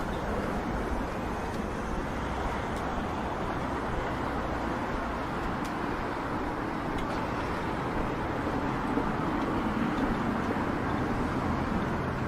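Steady city street ambience dominated by road traffic noise.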